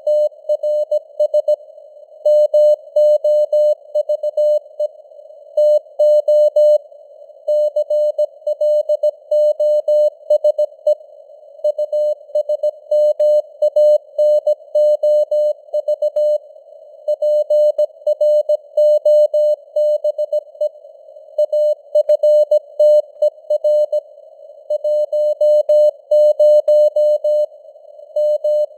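Morse code (CW) sent at 17 words per minute: a single mid-pitched beep keyed on and off in dots and dashes, with gaps between letters and words. A faint hiss of simulated radio noise sits around the tone.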